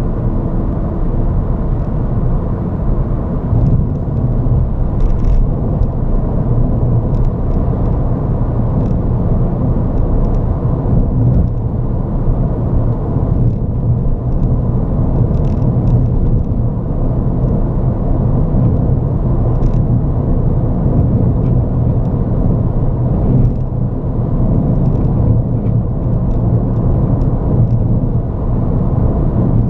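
Ford Fiesta ST's 1.6-litre turbocharged four-cylinder and tyres on the move: steady engine and road noise with a low drone, and faint scattered ticks.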